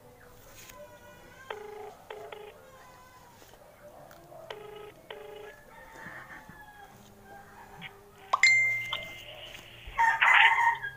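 Phone ringback tone through the phone's speaker: short double beeps repeating about every three seconds while the call rings. In the last few seconds a rooster crows loudly.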